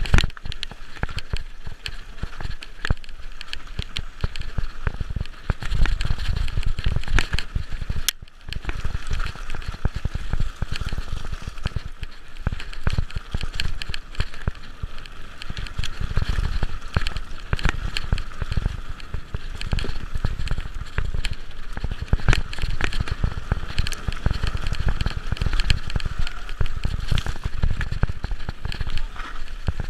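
Mountain bike clattering down a rough singletrack: tyres crunching over dry leaves and stones, with constant rattles and knocks from the bike over the bumps and a low rumble underneath.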